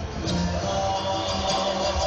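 Live Hawaiian string band playing: strummed guitars and ukuleles over a plucked upright bass.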